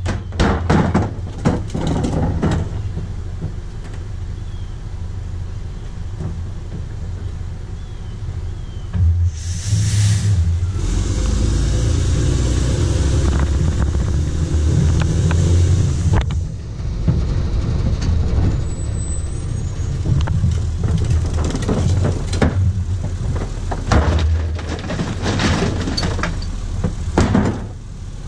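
Rear-loader garbage truck's engine running steadily, with recyclables (cardboard, plastic bottles, cans) clattering into the hopper as bins are tipped, in the first couple of seconds and again near the end. About ten seconds in comes a short hiss of released air, and for several seconds after it the engine runs louder.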